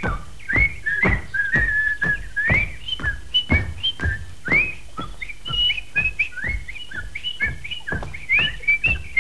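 Someone whistling a tune of short notes, many of them sliding upward, over steady footsteps thudding on a stage floor about twice a second.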